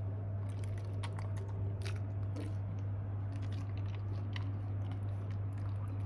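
A small dog eating sticky natto fermented soybeans: irregular wet chewing and smacking clicks, over a steady low hum.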